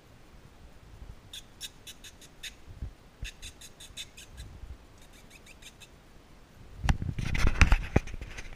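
Very young Belgian Tervuren puppies squeaking: runs of short high squeaks, about five a second, come in a few short bursts. About seven seconds in, loud thumps and rustling take over as a puppy bumps and scrabbles against the camera.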